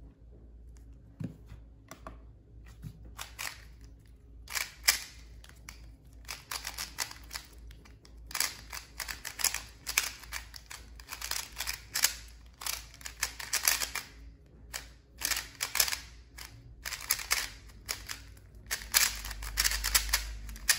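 Qiyi MS 3x3 magnetic speedcube being turned fast during a timed solve: a few soft clicks at first, then quick flurries of clicking and clacking from the turning layers, with short pauses between them.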